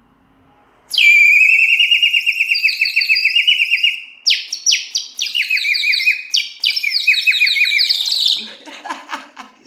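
Terracotta water bird whistle blown with water inside, giving a fast warbling, bird-like trill: one long trill starting about a second in, then several shorter trills that each fall in pitch.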